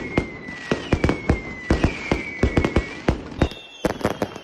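Firecrackers and fireworks going off: irregular sharp bangs, several a second, coming quicker near the end. Under them, high whistles sound over and over, each dipping slightly in pitch.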